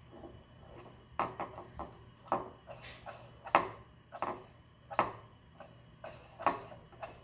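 Plastic fidget spinner being flicked by hand: a string of sharp clicks at irregular spacing, roughly one to three a second.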